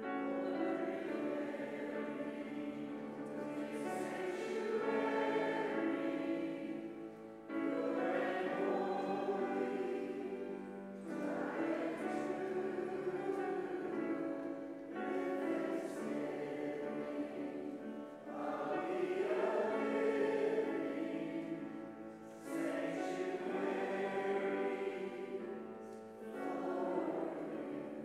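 Church congregation singing a hymn together, in sustained phrases of about four seconds with short breaks between them.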